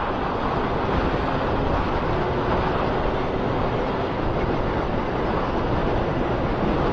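Wind rushing over an action camera's microphone on a Honda Fireblade at road speed, with the bike's inline-four engine faint and steady underneath.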